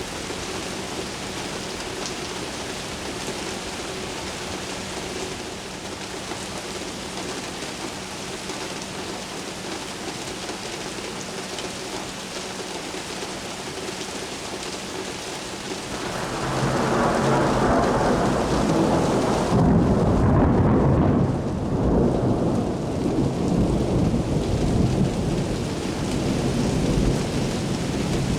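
Steady rain falling, then thunder rolls in a little over halfway through: a long, loud, low rumble that swells to its peak a few seconds later and keeps rumbling on under the rain.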